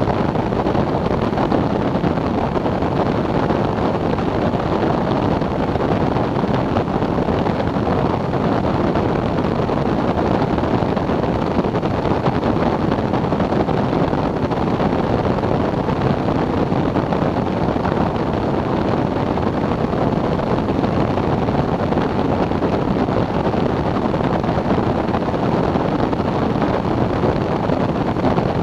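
Steady rush of airflow and wind noise on the microphone of a weight-shift microlight trike in cruising flight, blended with the running engine and pusher propeller.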